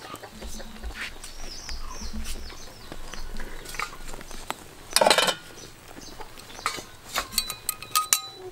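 Chickens clucking in the background, with a brief loud noise about five seconds in. Light metal clinks ring out near the end.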